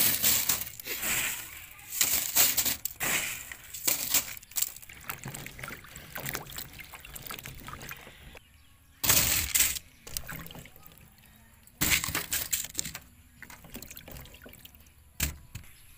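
Crushed ice clinking and crackling as hands rummage through it on a plate, then water sloshing and splashing as green mango slices are rubbed clean in a basin, with a couple of louder splashes partway through.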